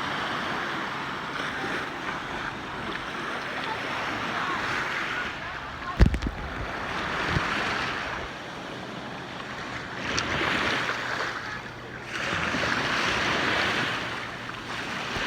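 Ocean surf breaking and washing on a beach, the noise of the waves swelling and fading in several surges, with wind on the microphone. A sharp thump about six seconds in is the loudest sound, with a smaller one about a second later.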